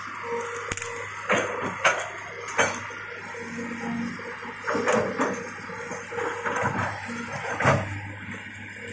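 Tracked hydraulic excavator's diesel engine running steadily while the machine works through cleared brush, with several sharp cracks and knocks of branches and debris breaking, the loudest near the end.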